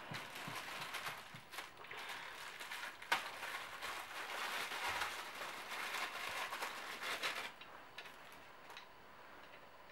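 Small clear plastic bag crinkling and rustling as it is handled and opened, with scattered sharp crackles. It stops about seven and a half seconds in.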